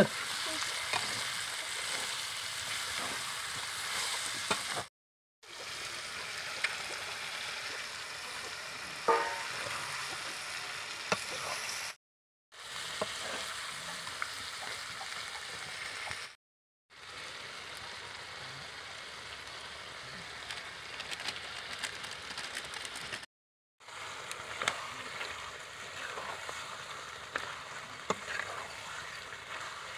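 Mutton curry frying and sizzling in an aluminium kadai: a steady hiss, with a metal spatula scraping and clicking against the pan as it is stirred. The sound cuts out briefly four times.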